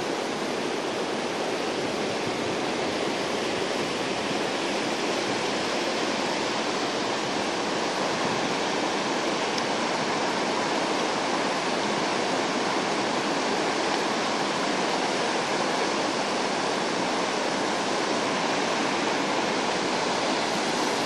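Broad river rapids rushing steadily over a rocky bed: an even, unbroken whitewater noise.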